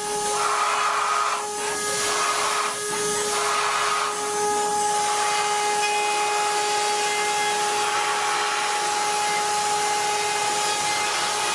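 A machine's electric motor running steadily with a constant whine over a loud hiss, with a few short surges of working noise in the first few seconds.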